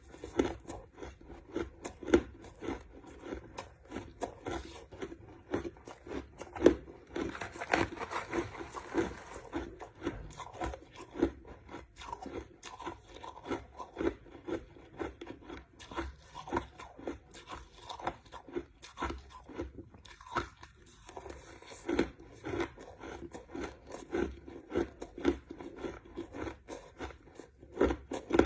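Crushed ice being chewed, with a steady run of crunches about two a second and a brief pause about twenty seconds in.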